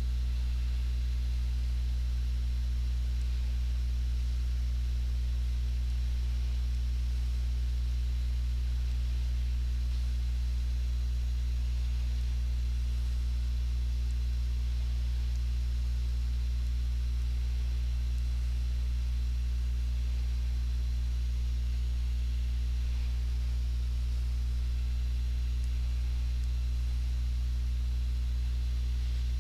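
Steady low electrical hum, like mains hum picked up by the recording chain, with a faint hiss and nothing else.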